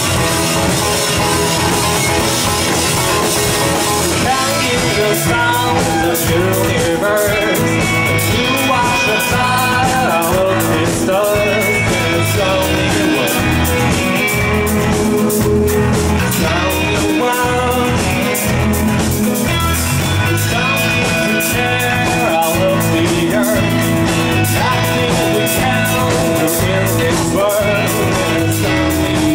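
A rock band playing live, loud: drum kit, electric guitar and a singing voice. A steady drum beat comes in about five seconds in.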